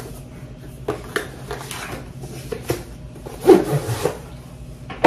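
A product box being handled and unpacked: rubbing and scraping with several knocks, the loudest about three and a half seconds in.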